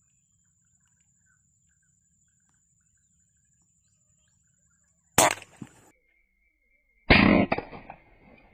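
A single shot from a Killua 120 LWP air rifle, one sharp crack about five seconds in. About two seconds later comes a loud burst of splashing as a hit whistling duck thrashes in the water.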